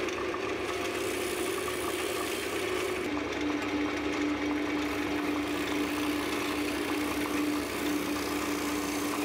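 Wood lathe running with a steady hum while a turning tool cuts the inside of a small cherry bowl, giving a continuous scraping hiss. The hum drops slightly in pitch about three seconds in.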